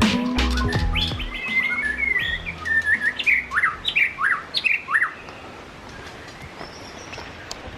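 A bird singing: a run of chirps and quick upward-sweeping whistled notes, repeated several times, dying away after about five seconds. The tail of background music ends in the first second or so.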